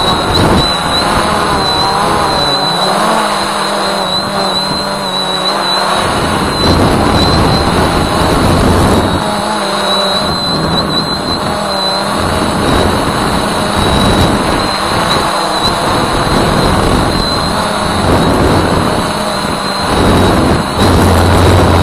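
Voyager 3 drone's electric motors and propellers, heard through its onboard camera: a continuous buzzing whine whose pitch drifts up and down as the throttle changes, over a rushing noise, with a thin high steady tone.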